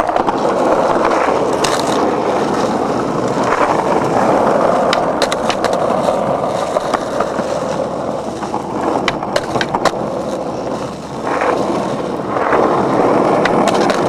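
Skateboard wheels rolling over rough concrete, a steady rumble with scattered sharp clicks and ticks from the board.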